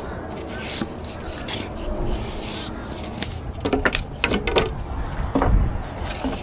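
Polystyrene foam corner protectors being worked off a solar panel, the foam rubbing and scraping against the panel frame and cardboard packaging, with a few sharper knocks and scrapes about halfway through.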